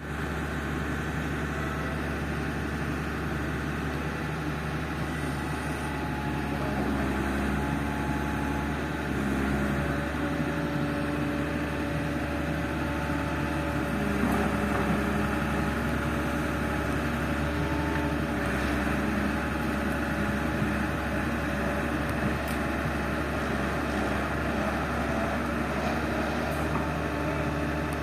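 Excavator's diesel engine running steadily, its note shifting a little every few seconds as it works.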